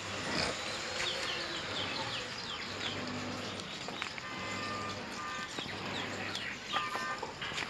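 Many short, high chirps repeating irregularly, as of small birds, over a faint low hum.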